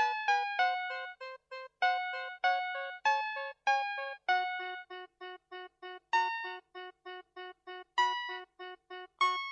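VTech Schlummerschnuffi toy's melody chip playing a classical tune in simple electronic piano-like tones. Louder melody notes fade out over a steady, short, repeated accompaniment of about four notes a second.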